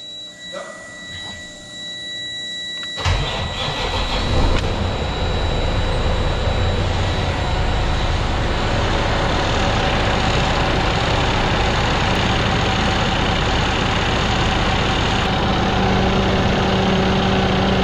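Freshly rebuilt Cummins ISX inline-six diesel cranking and catching about three seconds in, starting easily, then settling into a steady idle. A steady high tone sounds until the engine fires.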